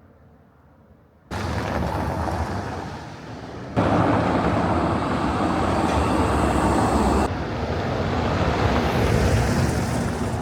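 Outdoor street noise with a steady low traffic rumble, starting abruptly about a second in and jumping in level at sharp cuts about four and seven seconds in.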